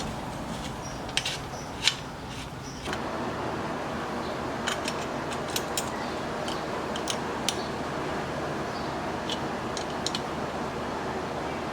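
Steady background hiss, fuller from about three seconds in, with a dozen or so short, sharp metallic clicks and clinks scattered through it: tools and charge-pipe parts being handled while the intercooler piping is fitted.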